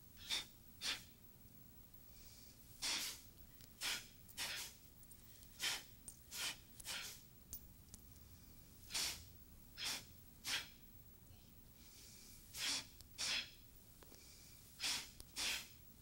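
Short, sharp breaths, forceful exhalations timed to martial-arts-like Tensegrity movements. They come singly or in quick pairs every second or so, over a quiet room.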